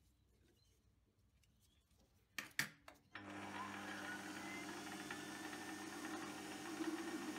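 Near silence, then a couple of short knocks about two and a half seconds in, after which a metal lathe starts at about three seconds and runs with a steady motor hum, spinning a brass knob on a mandrel.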